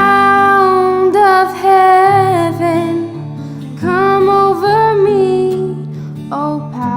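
A woman singing a worship song in long held notes with vibrato, in two phrases and a short third, over strummed acoustic guitar chords.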